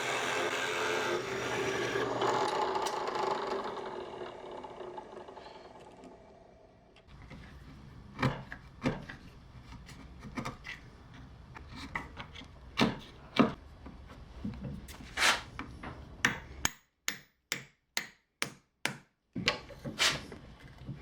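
A drill boring into a maple block, its noise dying away over the first several seconds as it winds down. After that come scattered sharp knocks and taps of wood being handled and struck.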